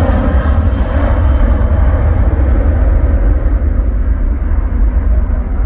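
Airbus A330-300 jet engines producing a loud, deep rumble as the airliner moves away. The higher part of the roar fades steadily while the low rumble stays strong.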